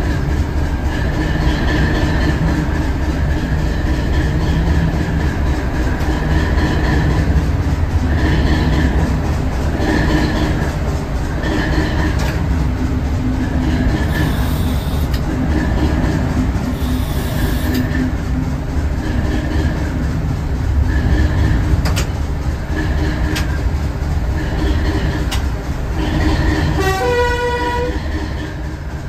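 Class 450 'Thumper' DEMU running from the cab, its 4SRKT diesel engine rumbling steadily and its wheels clicking over rail joints. A short horn blast sounds near the end.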